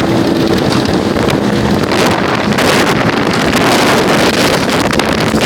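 Strong wind buffeting the microphone over the steady running of a motorboat's engine.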